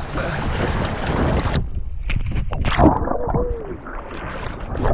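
Wind buffeting the microphone, then a run of scattered knocks and clicks as a fish is handled on the rocks for release.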